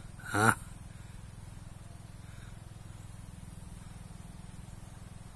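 A short rising "ah" from a person's voice about half a second in, then a steady low hum.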